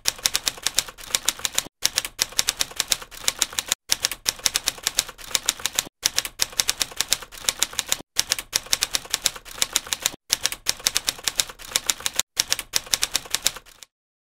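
Typing sound effect: rapid key clicks, many a second, in a run that breaks off briefly about every two seconds and stops near the end.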